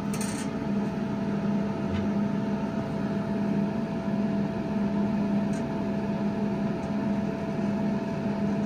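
Steady hum with a low drone and a thin, constant whine from an Arcdroid CNC plasma cutting machine and its Primeweld Cut60 plasma cutter during a dry run. The torch head traces its path with the torch switched off, so no cutting arc is heard.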